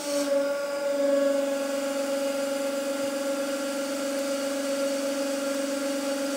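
150-ton hydraulic press running, a steady hum from its pump and motor as the ram drives a screw down into plywood.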